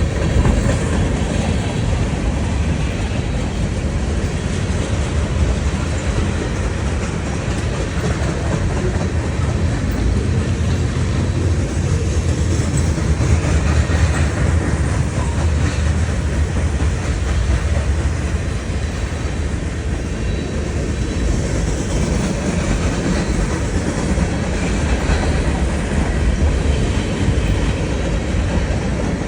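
Freight cars of a CSX manifest train rolling past, a steady rumble of steel wheels on rail.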